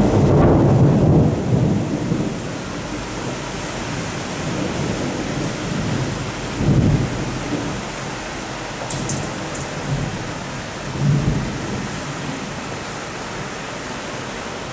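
Thunder rumbling over steady heavy rain. A loud roll of thunder dies away over the first couple of seconds, and two shorter, fainter rumbles come about halfway through and again a few seconds later.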